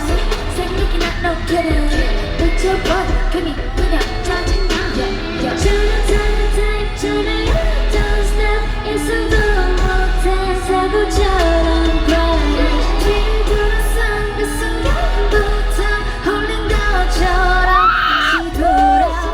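Female K-pop group singing live over a loud pop backing track with a heavy bass line and steady beat; the bass comes in stronger about six seconds in.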